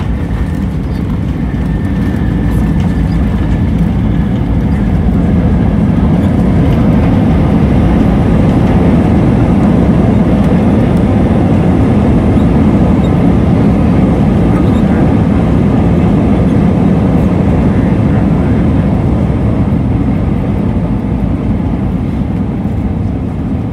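Inside the cabin of an Airbus A320-232 on its landing rollout: a loud rumble of the IAE V2500 engines and the wheels on the runway, swelling a few seconds in as reverse thrust is applied with the spoilers up, then easing off after the middle as the airliner slows.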